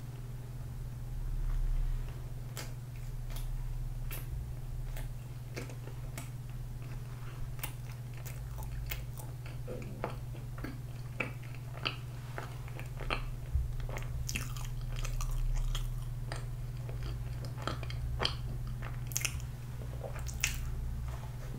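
Close-up chewing and biting of soft, chewy cream-filled butter condensed-milk bread, with many small wet mouth clicks scattered throughout. A steady low hum runs underneath.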